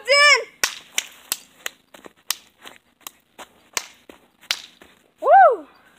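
A short shouted call from a voice, then about ten sharp, irregular taps or smacks spread over four seconds, then another loud rising-and-falling call about five seconds in.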